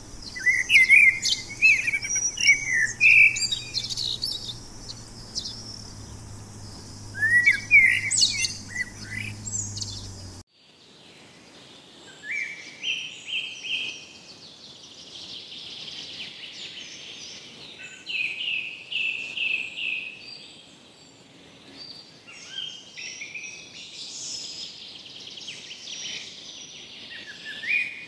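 Birds chirping and calling in a series of short, quick notes. The recording changes abruptly about ten seconds in, where a low steady hum under the first part stops.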